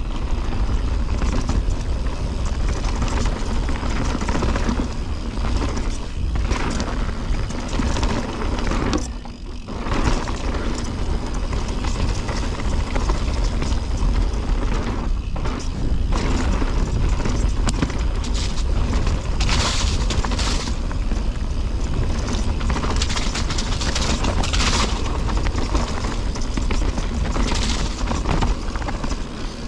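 Mountain bike riding fast down a rough dirt trail, heard from a handlebar camera: a steady deep wind rumble on the microphone, tyres on dirt and a constant rattle and clatter of the bike's chain and frame over rocks and roots. The noise dips briefly about nine seconds in.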